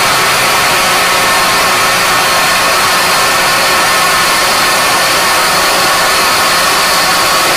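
Countertop blender running steadily and loudly, puréeing cooked mung beans with coconut cream and sugar into a smooth batter.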